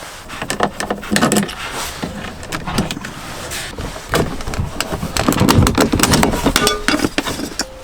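Irregular clicks, knocks and rattles of hand tools and plastic trim while fixings are taken out of a car's rear door panel.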